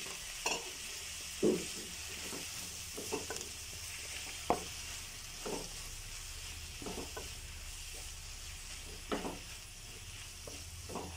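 Onions and freshly added tomatoes frying in oil, sizzling steadily, while a wooden spatula stirs them, giving about a dozen short, irregular knocks and scrapes against the pan.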